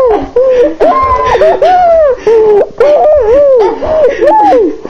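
A girl crying and wailing loudly in high-pitched cries, one arching up-and-down cry after another.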